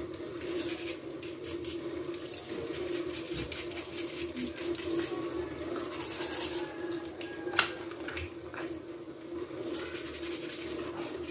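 Tap water running and splashing while a mud crab's shell is scrubbed with a scouring pad, with quick scratchy scrubbing strokes. One sharp knock about three-quarters of the way through.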